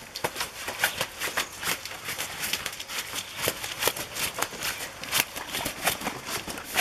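Wet net bag holding a large tambacu rustling and slapping as it is carried: a fast, irregular run of crackling clicks.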